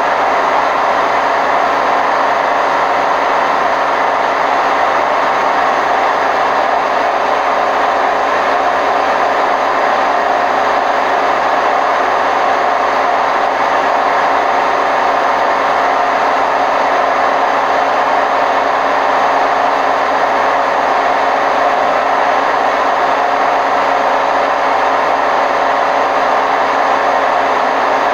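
Hotpoint WMF760 washing machine on its spin cycle, running at a steady, loud pitch. The noise comes from its bad drum bearings.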